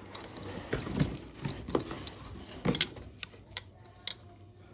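A coiled, fabric-covered expandable garden hose being handled: rustling, with irregular sharp clicks and knocks from its fittings and pistol-grip spray nozzle.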